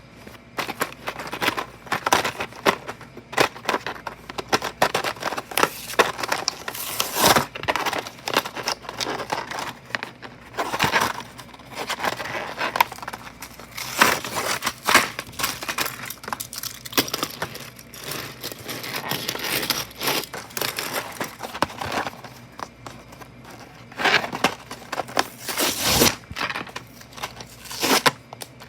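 Toy packaging being handled and torn open: irregular crinkling, crackling and tearing, louder at moments about 7, 11, 14 and 26 seconds in.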